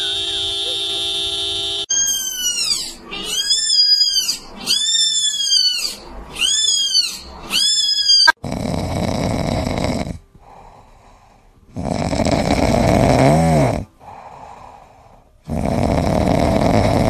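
A car horn held down for about two seconds. Then a small kitten cries five times, each cry rising then falling in pitch. A sleeping cat then snores in three long breaths, and the second breath ends in a short whistling rise and fall.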